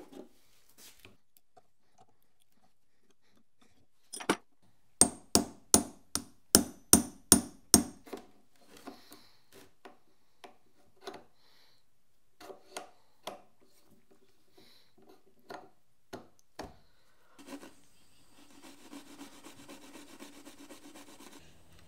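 Metal parts of a dividing head being handled: a run of about ten sharp metallic clicks, roughly three a second, then scattered softer clicks as the brass index plunger and crank arm are worked against the index plate. Near the end, a small metal part being rubbed back and forth on an abrasive pad.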